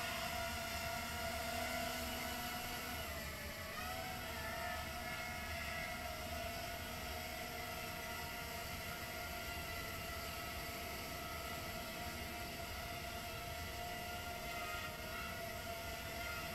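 Small quadcopter's 1306 brushless motors and three-inch tri-blade propellers whining steadily in a hover, the pitch dipping briefly and recovering about three and a half seconds in.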